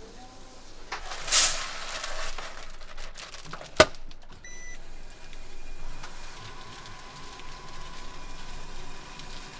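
A brief rustling hiss, then a sharp click and a short beep as the control panel of a Kubota rice-polishing machine is pressed. About two seconds later the machine starts running with a steady hum and whine.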